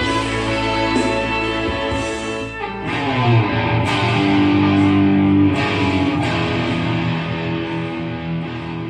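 Rock music led by electric guitar playing long, held notes over bass and band, with a sliding note about three seconds in; the music starts to fade near the end.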